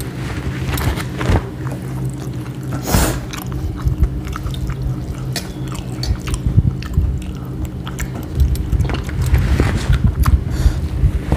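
Close-up wet chewing and lip-smacking of people eating rice and curries by hand, with fingers mixing rice on steel plates, over a steady low hum.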